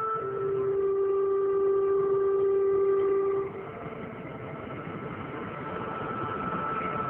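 Long held tones: a low note and a higher note sounding together for about three and a half seconds, then dropping away and leaving one higher tone held on.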